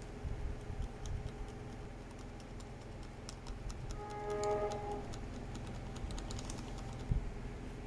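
Light clicks and ticks from handling a blade and soldering iron on a circuit board, over a steady low hum. A short pitched tone sounds about halfway through, and a sharper knock comes near the end.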